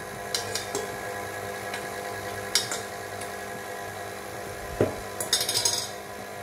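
Tilt-head stand mixer running steadily as it beats red velvet cake batter, while a metal spoon clinks and scrapes against the steel bowls as the wet ingredients are spooned in, with a quick run of clinks near the end.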